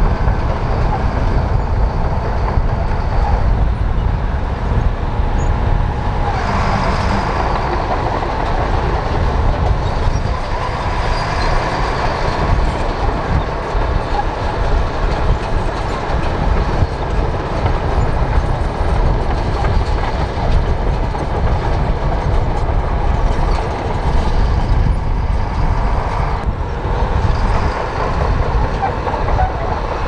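Komatsu crawler bulldozer working: its diesel engine runs steadily under load while the steel tracks clatter as the blade pushes and spreads dirt.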